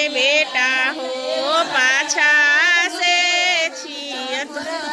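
A group of women singing a Bhojpuri wedding folk song together in long, held sung lines, several voices overlapping.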